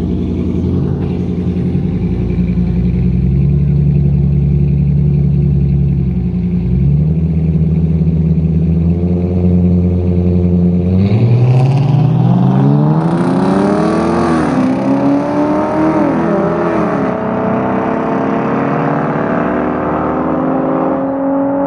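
A Ford Mustang and a Dodge Charger R/T with its 5.7 HEMI V8 idle and rev at the start line, then launch side by side in a drag race about halfway through. The engine note rises sharply, drops twice as the gears shift up, and climbs again as the cars pull away down the street.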